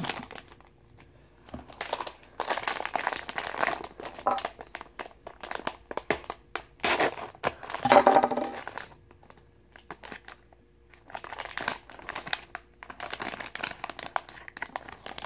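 Foil blind-bag packet crinkling in irregular bursts as it is handled and worked open by hand, with short pauses between; the loudest burst comes about eight seconds in.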